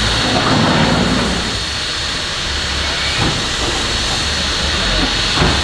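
Steam locomotive hissing steadily, with a thin high whine in the hiss, over the low, uneven rumble of a backhoe loader's diesel engine; a short knock near the end.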